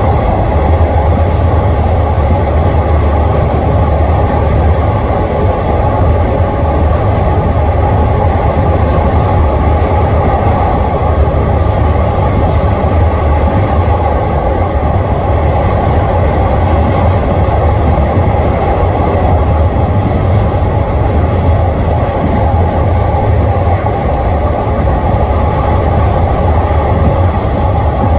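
Steady running noise of a passenger train heard from on board as it travels at speed along an elevated track: an even rush of wheels on rail over a deep rumble, with no clear rhythm of rail joints.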